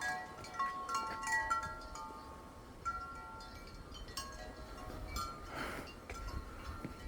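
Wind chimes ringing in the breeze: many clear tones struck at irregular moments, overlapping as each rings on, with light clinks.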